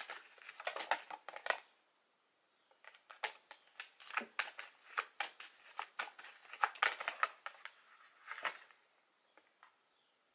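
A deck of oracle cards being shuffled by hand: a quick run of crisp card slaps and flicks. It pauses briefly about two seconds in and thins to a few clicks near the end.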